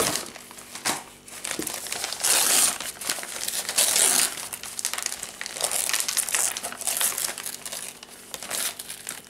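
White packing paper crinkling and rustling as it is pulled off a potted orchid, in irregular handfuls, the loudest about two and a half and four seconds in.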